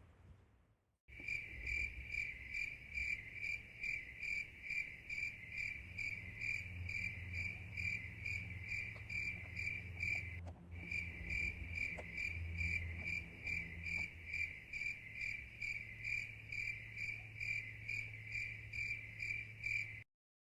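Insect chirping like a cricket: an even, high-pitched run of chirps, a few a second. It starts abruptly, breaks off briefly about halfway and stops abruptly.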